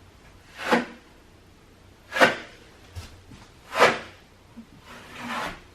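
Swishing strokes of a sanding sponge or pad across patched drywall: three strokes about a second and a half apart, then a fainter, longer one near the end.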